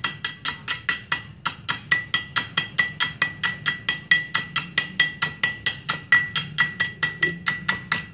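Rapid, even taps of metal on a welded plate, about five a second, each with a short high ring. The welding rod in the electrode holder is striking the bead-covered test plate, about 5 mm thick.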